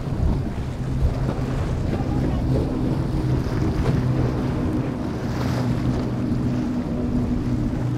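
Outboard engines of a center-console boat running at high speed, a steady drone, over the rush of water and spray from the hull, with wind buffeting the microphone.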